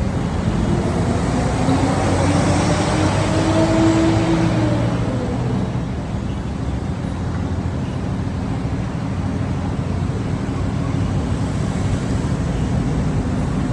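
Steady city road traffic rumble. One vehicle passes close from about one to five seconds in, its hum swelling and then fading.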